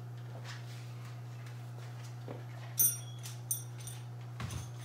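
Small metal screws clinking: one bright, ringing clink about three seconds in, then a couple of lighter ticks and a soft knock near the end, over a steady low hum.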